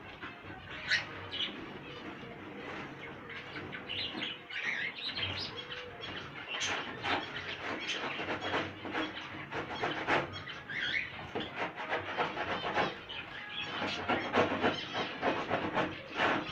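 Small caged birds, finches among them, chirping busily in many short high calls, with scattered clicks and clatter mixed in.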